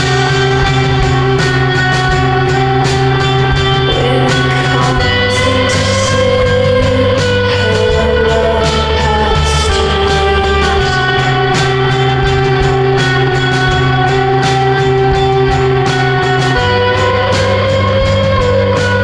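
Background music: a rock track with guitar, a steady drum beat and a bass line that changes note every few seconds.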